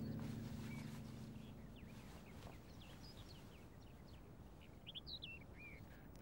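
Faint birds chirping in short, scattered calls, while the last notes of a plucked guzheng die away in the first second or two.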